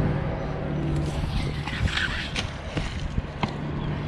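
A steady low motor-like hum with scattered short clicks and knocks over it, and a brief hiss about two seconds in.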